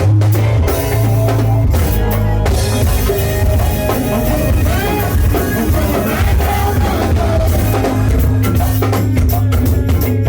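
Go-go band music: a drum kit and percussion keep a steady groove over a heavy bass line.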